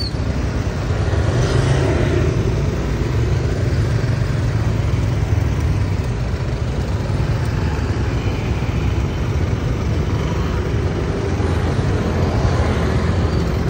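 A road vehicle driving along: steady engine and road noise with a low rumble.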